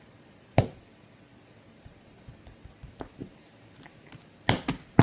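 Sharp hand smacks and knocks: one loud smack about half a second in, a few faint ticks in the middle, and three quick knocks close together near the end.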